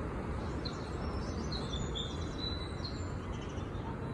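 Steady low background rumble, with faint high bird chirps scattered through the first two and a half seconds.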